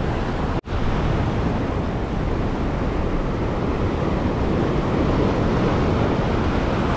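Surf breaking and washing over a rocky shoreline ledge, with wind buffeting the microphone, steady throughout. A momentary dropout about half a second in.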